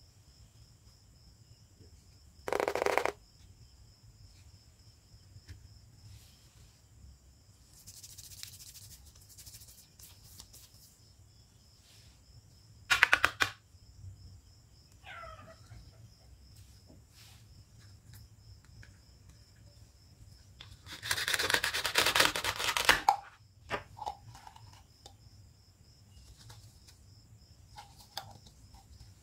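Plastic toy food being handled on a plastic cutting board: a few short clacks, then a rough tearing sound of about two seconds as a velcro-joined toy kiwi is pulled apart. A faint steady high-pitched tone sits underneath.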